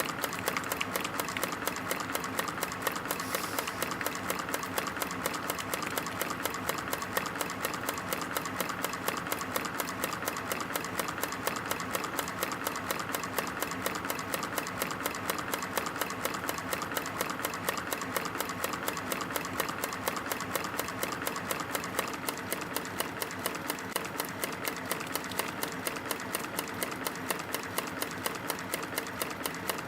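CNC wire stamping and forming machine running at production speed, punching and bending 0.8 mm wire into V-shaped spring clips. It makes a rapid, even mechanical clatter of about five strokes a second, one per finished part.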